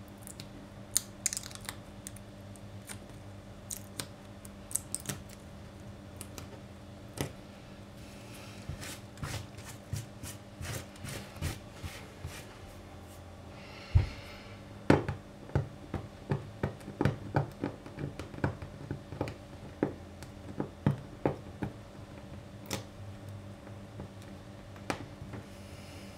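Fingernails picking and scraping at melted plastic bag stuck to a glass-ceramic hob, flakes cracking off: irregular sharp clicks and crackles, sparse at first and thickest in the second half, with one louder knock about halfway through.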